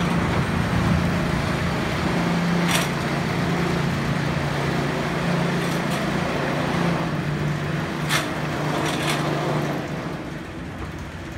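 Roller coaster running along its steel track: a steady low hum and rumble that fades near the end, with a few sharp clicks.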